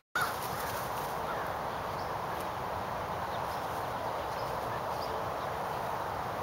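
Steady outdoor background noise with a few faint, brief bird chirps, after a split-second dropout at the very start.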